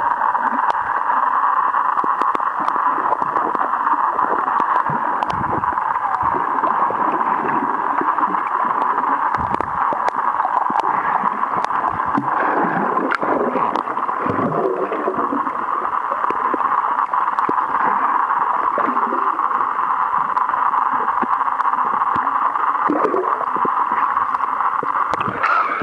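Swimming-pool water heard from a submerged camera: a steady, muffled rushing noise with scattered faint clicks and a few swells of bubbling and gurgling.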